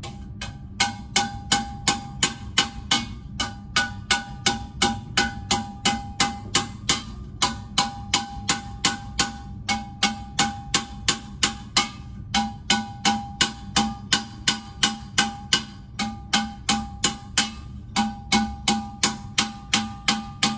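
Small metalworking hammer striking a copper vase held over a metal stake as the copper is raised, about three blows a second, each a bright metallic tap with a short ring. The steady rhythm breaks briefly about halfway through.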